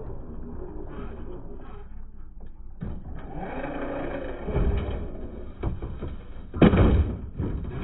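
Small electric motor and geared drivetrain of an RC rock crawler whirring, with a few loud low thumps near the end.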